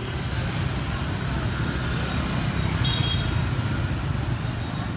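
Steady low rumble of a vehicle on the move, with a brief high tone about three seconds in.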